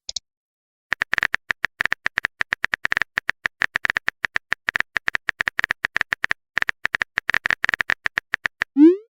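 Rapid, irregular clicking, several clicks a second with brief pauses, each click carrying a short high ring. A quick rising blip comes near the end.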